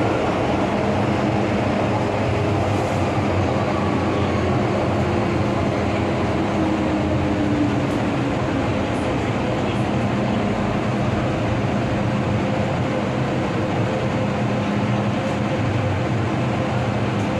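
MTR M-Train electric multiple unit running along the line: steady rolling and running noise with a low hum, and a tone that drops slightly about halfway through.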